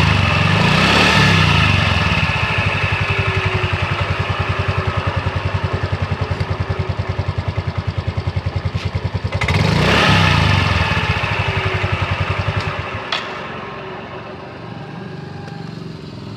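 Yamaha Mio M3 scooter's single-cylinder engine revved twice with the rear wheel turning, its drive giving a rough, pulsing growl ("ngorok"), then dropping back to idle near the end with a click. The growl only shows under throttle and is typical of a worn rear CVT-case bearing (laher).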